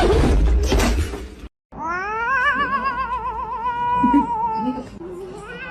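A loud noisy rush for about a second and a half, then, after a cut, a cat's long wavering yowl that rises and then slowly sinks over about three seconds, followed by a quieter second yowl near the end.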